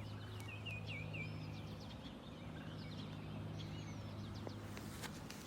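Small birds chirping and warbling in quick runs of short notes, over a steady low hum.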